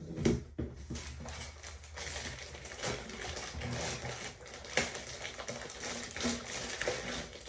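Handling noise from unpacking the hair dryer: scattered clicks, taps and rustling as plastic parts and packaging are moved about.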